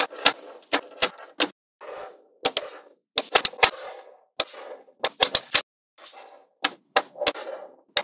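Small magnetic balls clicking and snapping together as strips of them are pressed onto a slab of balls. The clicks come in quick clusters of two to five, with a short rattle after some of them and brief pauses between.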